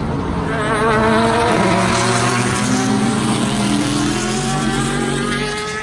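A car engine revving hard: the pitch climbs over the first second or two, holds high with some rise and fall, then stops abruptly.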